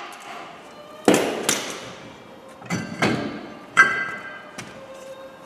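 Sharp metallic knocks and clanks, about five of them, one ringing briefly, as a van's steel front wheel and its wheel nuts are handled and the wheel is worked off the hub by hand.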